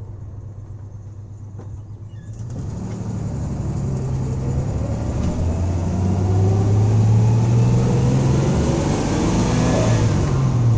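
1984 Dodge van's engine accelerating hard at wide-open throttle. It runs low and steady for about two seconds, then pulls with its pitch and loudness climbing steadily, and the pitch dips just before the end.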